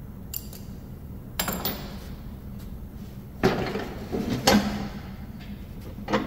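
Hand tools and a steel mower deck being handled on a wooden workbench: a few light metal clicks, a clatter, then several louder clanks and bangs with scraping between them, and one last knock near the end.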